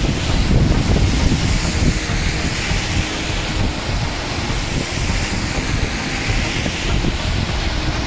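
Heavy rain falling on a city street, a steady hiss with a low rumble underneath.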